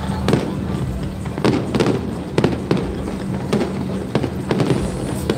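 Fireworks display: an irregular run of sharp bangs and cracks from shells bursting, several a second at times.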